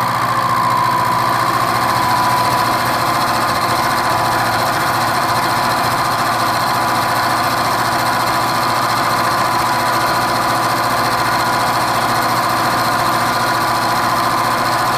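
Milling machine spindle driving a high-speed-steel cobalt roughing end mill through steel bar stock, cutting a slot about 0.4 inch deep and 0.2 inch wide in one slow pass. It gives a steady cutting drone with a constant whine running through it, and the cut runs smoothly.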